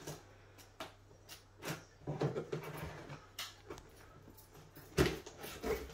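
A cardboard box being cut open along its tape and handled: scattered light clicks and scrapes, with a louder knock about five seconds in.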